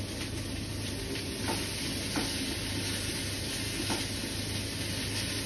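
Broccoli florets sizzling as they dry-roast in a hot non-stick frying pan, stirred and turned with a spatula, with a few light clicks of the spatula against the pan.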